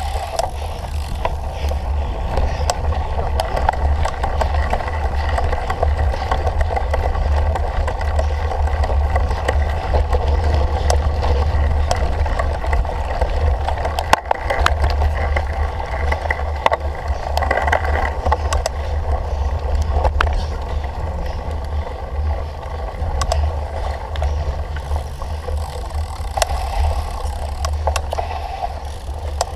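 Cyclocross bike being ridden hard over rough ground, heard from a camera mounted on the bike or rider: heavy wind rumble on the microphone with tyre noise and scattered rattles and clicks from the bike.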